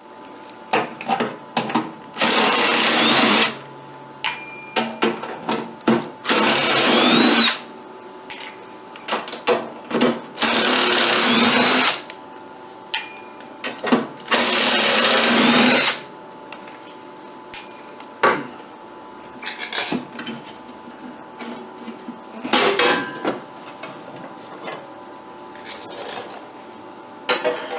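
Power drill running in four bursts of a second and a half to two seconds each, backing out the screws that hold a panel on a Craftsman snowblower. Clicks and knocks of screws and the metal panel come between and after the bursts.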